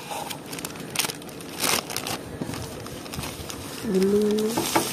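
Zip-lock plastic bag crinkling as it is opened and peeled off a block of kinetic sand, in short irregular crackles.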